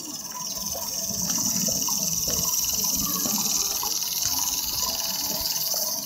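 A steady, high-pitched chorus of buzzing insects that swells about a second in, with a low rumble beneath it.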